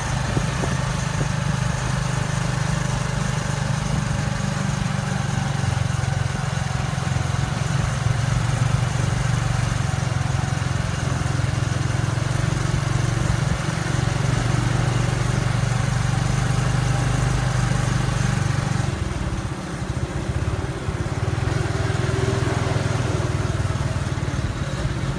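Motorcycle engine of a sidecar taxi (saleng), heard from the sidecar seat, running steadily at cruising speed; it eases off about three-quarters of the way through and picks up again shortly after.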